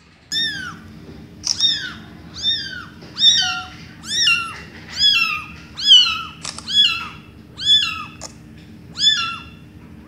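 A young kitten meowing over and over, about ten short, high-pitched mews roughly a second apart, each falling in pitch.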